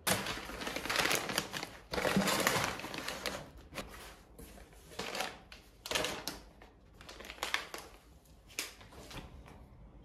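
Crinkly plastic snack wrappers rustling as they are handled: a long, dense stretch of crinkling in the first three seconds, then several shorter rustles.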